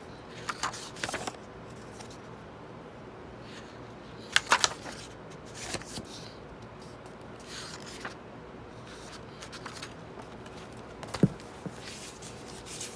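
Unboxed items and their packaging being handled: scattered crinkles, clicks and taps in small clusters, with one sharper knock near the end as something is set down.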